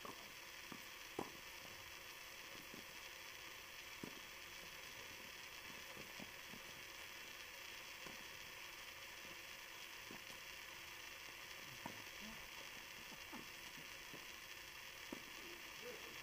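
Faint tennis ball strikes during a doubles rally, a few scattered knocks over a steady hiss.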